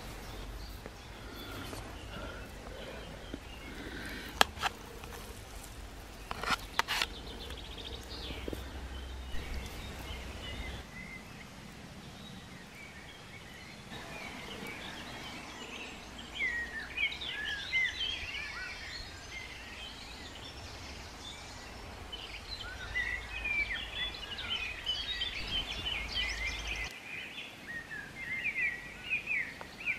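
Woodland ambience: small birds singing, with many quick chirps from about halfway through, over a steady low rumble. A few sharp clicks come early on.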